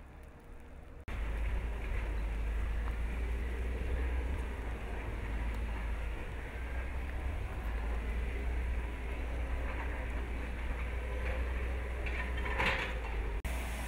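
Outdoor field recording with wind buffeting the microphone: a steady low rumble and hiss, starting abruptly about a second in, with a brief louder rustle near the end.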